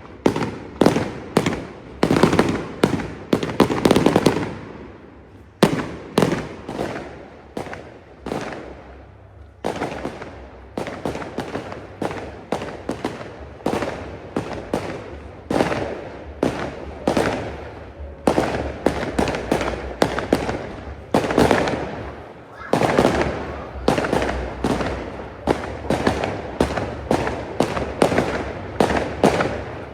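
Fireworks display: a rapid, irregular barrage of sharp bangs from exploding shells. It thins to a few single bangs a few seconds in, then picks up again into a dense barrage.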